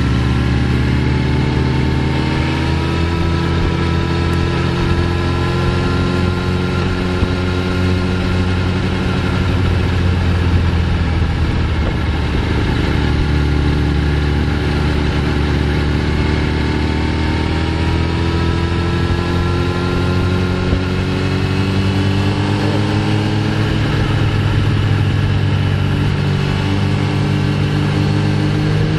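Sport motorcycle's engine heard from on board while riding, its revs climbing slowly and easing off several times through the bends, over a steady rush of wind noise.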